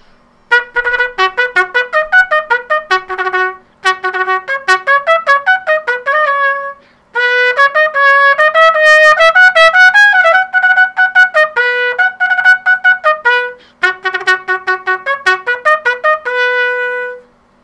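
Piccolo trumpet playing a Baroque-style exercise: phrases of quick, separately tongued notes with short pauses for breath, ending on a held note that stops shortly before the end.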